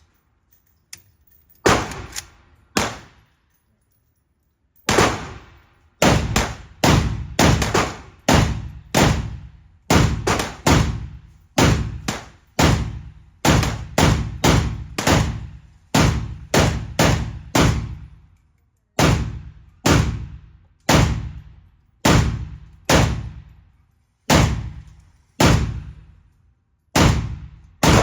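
Full-size Romanian Draco, a semi-automatic AK-pattern rifle in 7.62x39, firing at the range: two shots, then a long string of steady semi-automatic shots at about one to two a second, each with a ringing echo tail.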